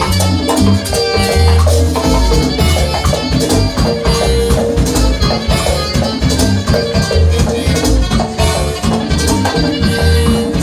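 Live band playing Dominican accordion dance music: accordion and saxophone over electric bass and keyboard, with steady percussion keeping the beat.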